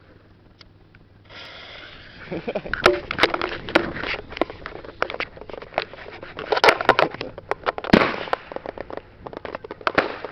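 A lit fuse hisses, then a Brothers 'Captain America' 30-shot daytime fireworks cake fires: a rapid, irregular string of sharp pops and cracks as its shots launch one after another.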